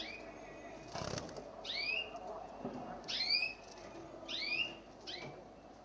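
Canary giving short, repeated chirping calls, about four in all, each a quick curved note, with a brief rustle about a second in.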